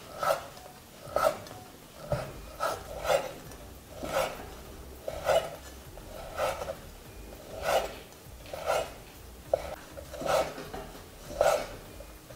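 Kitchen knife slicing through a rolled lavash flatbread into thin strips, each cut ending with a knock on a wooden cutting board, at roughly one cut a second.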